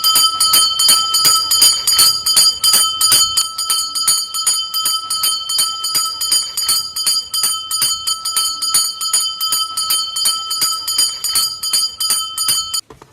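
A small handbell rung rapidly and steadily in an even stream of strikes, the way a kulfi street vendor rings to call customers; the ringing stops abruptly near the end.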